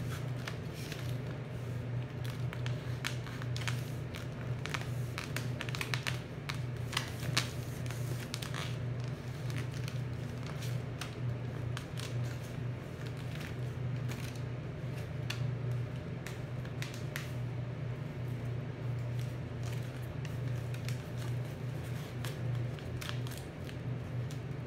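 Metallic foil paper crinkling and crackling in short, scattered bursts as it is folded and pressed flat by hand, over a steady low hum.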